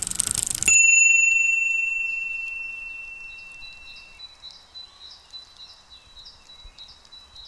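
A short clatter of clicks, then a bicycle bell rings once and fades out over about three seconds. Faint bird chirps follow.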